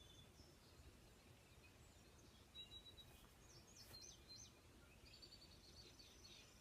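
Near silence with faint bird chirps: a few short high notes about three and a half seconds in, then a quick run of high chirps over a faint steady high buzz from about five seconds.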